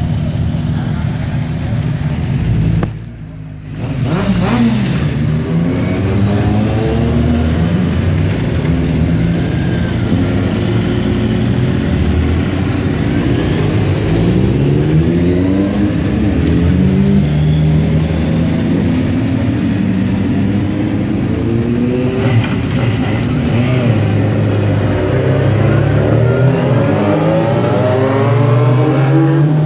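Several motorcycle engines idling. After a brief drop in level, a string of motorcycles accelerate away one after another, each engine rising in pitch through the gears.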